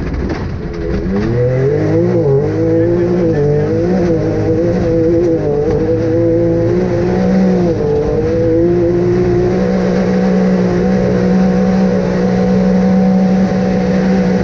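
Off-road vehicle's engine running under load, its pitch rising and falling over the first several seconds, then holding at a steady speed for the rest.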